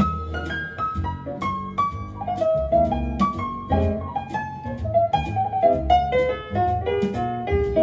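Piano music over a bass line, played back from tape on an Otari MX-5050B2 reel-to-reel deck through room loudspeakers.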